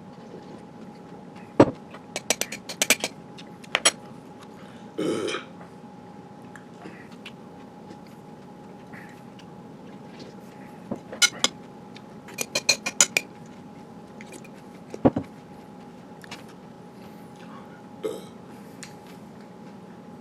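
Metal spoon clinking against a cereal bowl in quick clusters while eating cereal, with a short burp about five seconds in.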